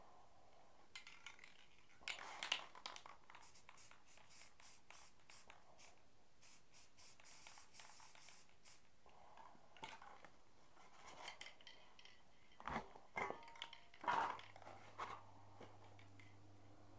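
Aerosol spray-paint can hissing in a quick series of short bursts about seven to nine seconds in. Scattered knocks and scrapes of cans and tools being handled come before and after, and a low steady hum comes in near the end.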